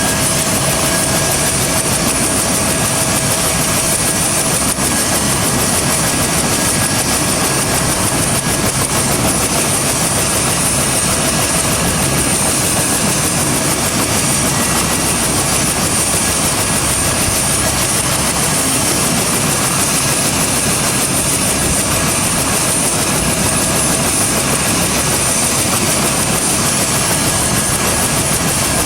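Bell UH-1 Huey helicopter's turboshaft engine running steadily during start-up: a loud, even rush with a high, steady turbine whine over it.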